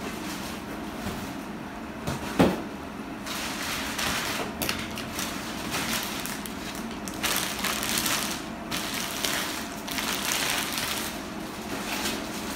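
Packaging being handled and opened: rustling and crinkling in stretches, with one sharp knock about two seconds in.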